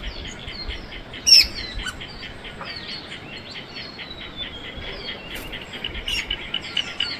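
Several small birds chirping and calling together, with short sliding whistles. There is a louder downward-sweeping call about a second in, and a quick, even run of chips, about five a second, near the end.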